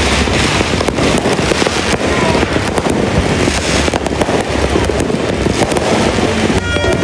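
Fireworks going off in a dense, continuous barrage: many crackles and bangs close together with no break.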